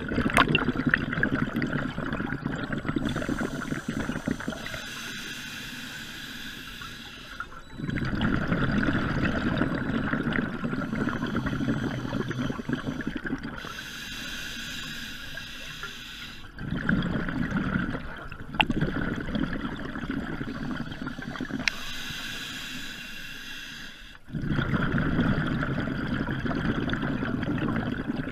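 Scuba diver breathing through a regulator underwater: a hissing inhale about every eight seconds, each followed by a long burble of exhaled bubbles.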